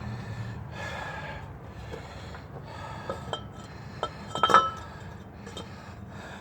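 Metal parts clinking as they are handled: a few scattered light clinks, some with a brief ring, the loudest about four and a half seconds in.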